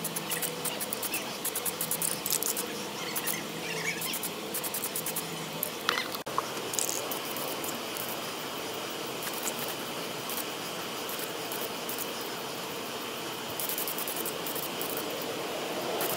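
Aerosol spray-paint can hissing as paint is sprayed, with a brief break about six seconds in.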